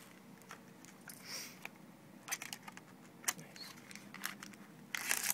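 Hands opening a small cardboard trading-card pack box and pulling out the foil-wrapped pack inside: scattered small clicks and crinkles of card and foil, with a louder rustle near the end.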